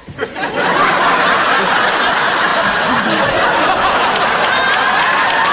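Studio audience laughing loudly, breaking out suddenly and holding steady, a crowd roar of laughter with some clapping mixed in.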